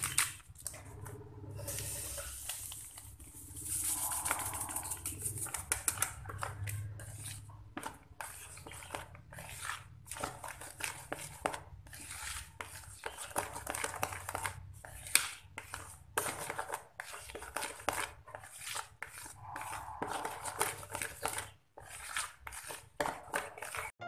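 Spatula stirring powdered cappuccino flavouring into whipped ice-cream batter in a plastic bowl, with irregular scraping and knocking against the bowl's sides.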